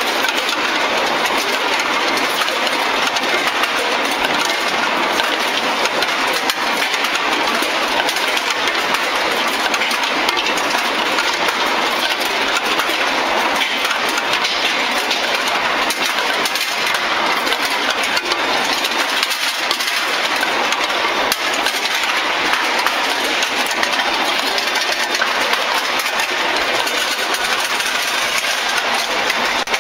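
Steel-ball skew rolling mill running steadily: a continuous, even mechanical din full of fine metallic clicking.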